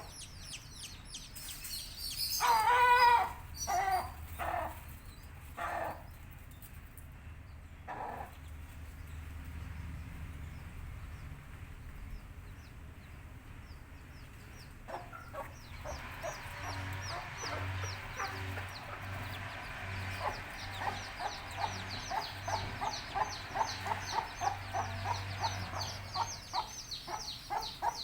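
Baby chicks peeping continuously, with an adult chicken giving one loud drawn-out call about three seconds in and a few single clucks after it. From about halfway there is rapid, repeated clucking among dense peeping.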